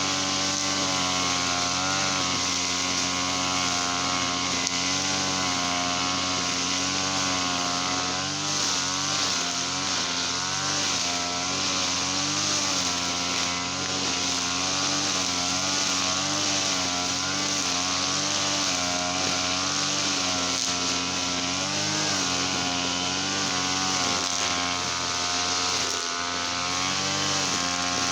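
Small petrol engine running steadily at speed, its pitch wavering slightly up and down.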